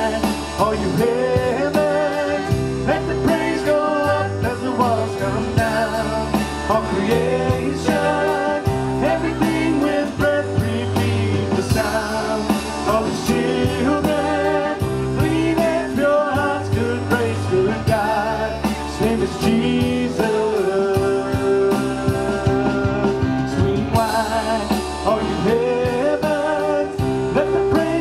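A worship song: a singer with a wavering voice over guitar, a bass line stepping between held low notes, and a steady drum beat.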